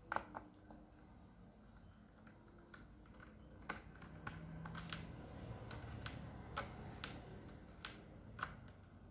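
Small scattered clicks and taps of a screwdriver working the screws out of a laptop's plastic bottom cover, with a low rumble of handling noise swelling in the middle.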